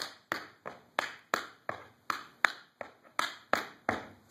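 Tap shoes striking a wooden floor: an even run of about a dozen sharp taps, roughly three a second, as a tap step sequence is danced.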